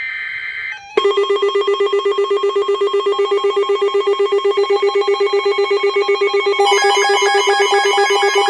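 Emergency alert broadcast tones: a short high electronic burst, then about a second in a loud, rapidly pulsing low alert tone that trills like a phone bell, joined near the end by a second, higher pulsing tone.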